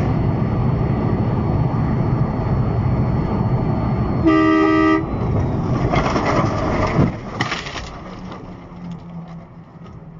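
Steady road and engine noise inside a truck cab at highway speed, with one horn blast lasting under a second about four seconds in. The noise then fades over the last few seconds as the truck slows.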